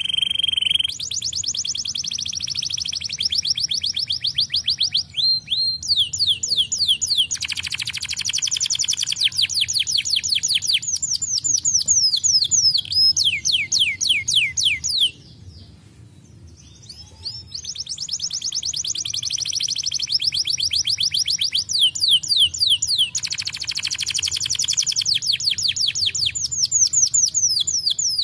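Domestic canary singing: long, fast trills of rapidly repeated notes alternating with runs of falling sweeps, with a break of about two seconds midway before the song starts again.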